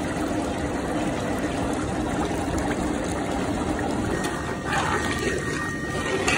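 A pot of chana daal with gourd boiling hard, a steady bubbling of thick liquid. A faint high steady tone comes in about two-thirds of the way through.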